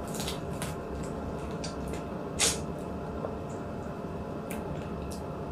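Close-up eating sounds: chewing and wet mouth smacks in short, irregular ticks, with one louder smack about halfway through, over a steady low hum.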